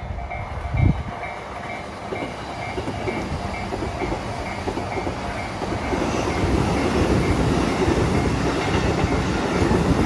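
Japanese level-crossing warning bell ringing in a steady repeating pattern while a Keihin-Tohoku line electric commuter train passes. The train's rumble and wheel clatter grow louder from about the middle on, with a single thump about a second in.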